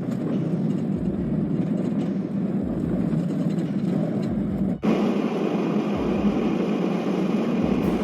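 Steady rumble of a car on the move through snow, with a brief break about five seconds in.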